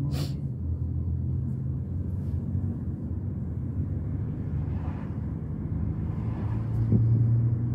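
Steady low road and engine rumble inside a moving car's cabin, with a brief hiss right at the start.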